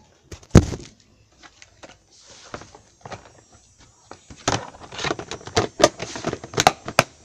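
Handling knocks and clatter close to the microphone: one loud thump about half a second in, a few light clicks, then a quick run of sharp knocks and clicks in the second half.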